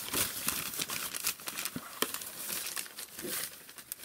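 Crumpled packing paper crinkling and rustling as a hand digs through it in a cardboard box, with a sharp crackle about two seconds in; it dies down near the end.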